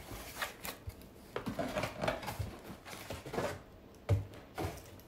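Cardboard shipping box being handled: flaps and packaging rustling and scraping in irregular short bursts as a boxed product is lifted out, with a dull thump about four seconds in.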